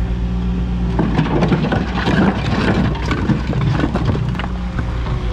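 An engine idling steadily. From about a second in, a few seconds of irregular clattering and rustling noise play over it, then die back.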